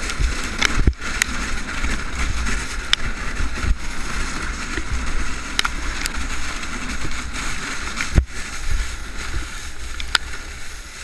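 A snowmobile running steadily ahead while the sled it tows slides over snow, with wind rumble on the microphone. About nine sharp knocks come through as the sled jolts over bumps.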